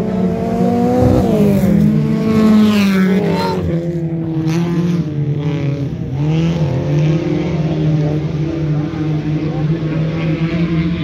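Several 2.1-litre oval-track race car engines running hard as the cars race round the dirt oval, their pitch rising and falling as drivers accelerate and lift. One car passes close and sweeps down in pitch about three seconds in.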